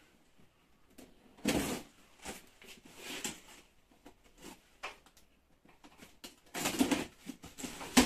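A cardboard parcel being opened and its packing handled: irregular rustles and scrapes with a few knocks, the longest rustle near the end and a sharp click just before it ends.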